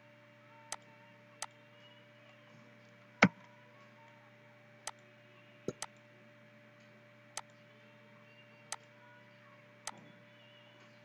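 Computer mouse button clicking, about nine sharp single clicks at irregular intervals, with a louder one about three seconds in and two in quick succession near the middle, over a steady low electrical hum.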